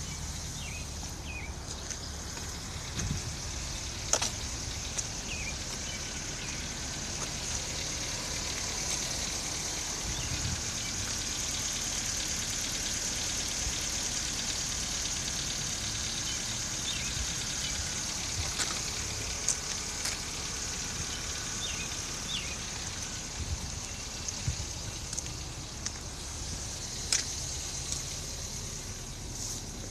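2017 Nissan Micra SV's 1.6-litre four-cylinder engine idling steadily, with the tapping the owner has heard since before 1,200 km and suspects is an engine fault.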